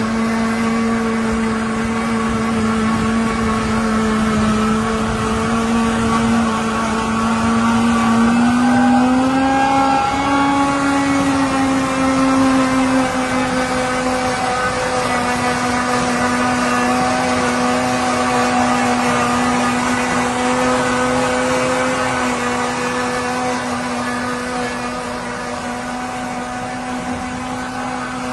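Tractor and tractor-mounted three-row corn silage harvester running: a steady machine hum with a strong whining tone that rises slightly about nine seconds in and then holds.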